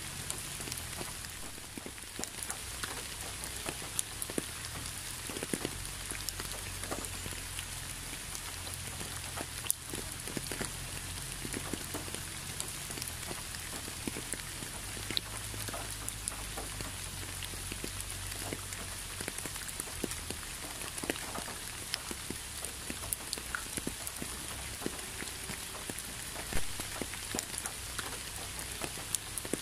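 Steady rain falling, with many individual drops striking close by as scattered sharp ticks over an even hiss.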